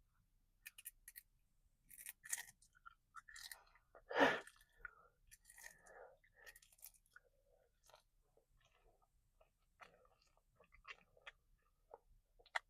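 Faint chewing and crunching of a piece of tarantula in the mouth: scattered small crackles and clicks, with one louder mouth sound about four seconds in.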